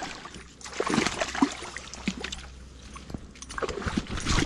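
Rustling and scattered knocks of a person moving and crouching on a rocky, overgrown bank with a body-worn camera. A couple of louder bursts come about a second in and near the end.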